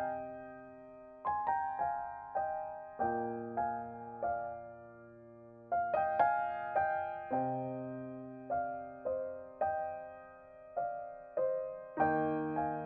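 Background music: slow, gentle piano, single notes struck and left to ring and fade.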